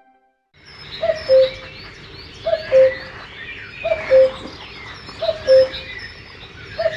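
A Xiaomi Mi1 birdsong ringtone: a chorus of chirping birds with a low two-note call that falls from the first note to the second, repeating about every 1.4 seconds, five times. It starts about half a second in, after a brief silence.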